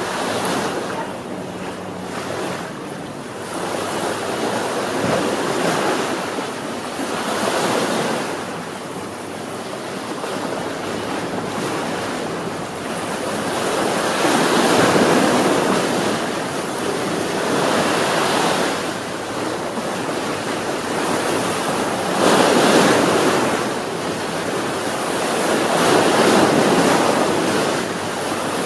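Sea waves breaking and washing up the shore, one surge after another every few seconds in an unbroken rush of surf, a few breaking louder than the rest.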